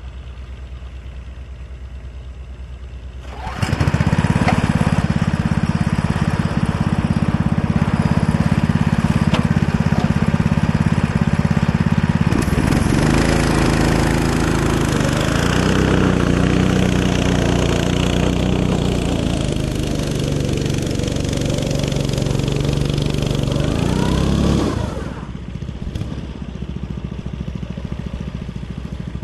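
Small go-kart engine idling, then opened up about three and a half seconds in and running loud under throttle with its pitch shifting, before dropping back toward idle near the end.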